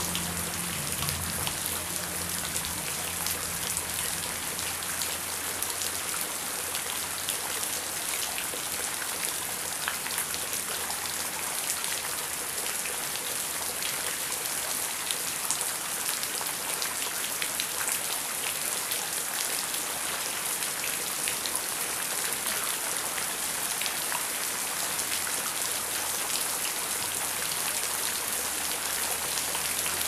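Heavy rain falling steadily: a dense, even hiss with many individual drops striking close by.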